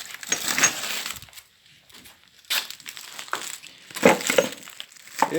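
Irregular rustling and crinkling, like a bag or wrapping being handled, in uneven bursts with a quieter gap about two seconds in.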